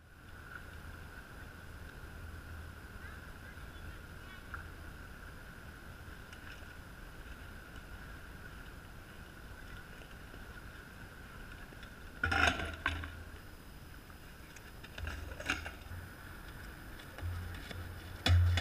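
Faint outdoor background with a steady faint high tone, broken three times in the second half by short clattering knocks of a BMX flatland bike's tyres and frame hitting the paving.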